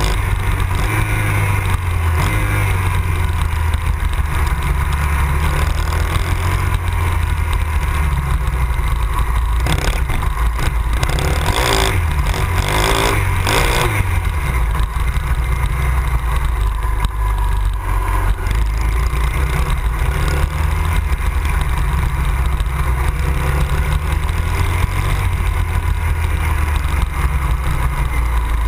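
Honda XR 250 Tornado's single-cylinder four-stroke engine running on the move, its pitch shifting as the throttle changes, with a loud low rumble on a camera mounted on the bike. A few brief louder rushes of noise come about ten to fourteen seconds in.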